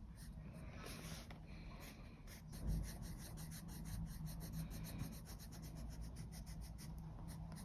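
Soft-core Prismacolor coloured pencil rubbing on paper in many short repeated strokes as a colour is laid down, with one soft bump about three seconds in.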